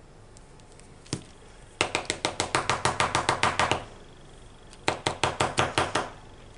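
Small plastic bottle of Nuvo Crystal Drops rapped lid-down against a craft mat in quick sharp taps, about eight a second. One run lasts about two seconds, then a shorter run follows near the end.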